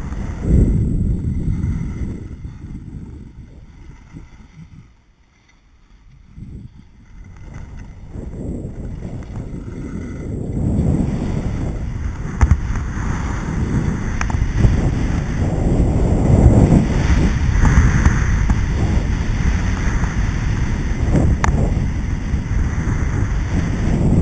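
Wind buffeting an action camera's microphone while skiing downhill. It fades to a lull about five seconds in, then builds back up as speed picks up, with a couple of sharp clicks.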